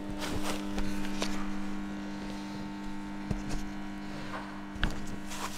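A steady hum, with scattered clicks and knocks over it, the loudest knock near the end.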